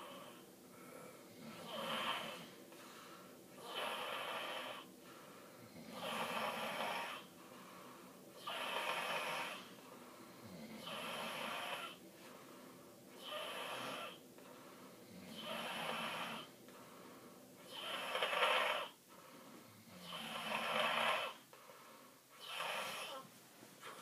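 A sleeping child snoring in a steady rhythm, about ten snores, one every two seconds or so, each lasting about a second.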